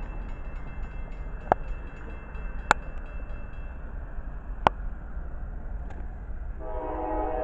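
A Norfolk Southern locomotive horn begins sounding about a second before the end, a steady chord over low background noise. Earlier, three sharp clicks stand out.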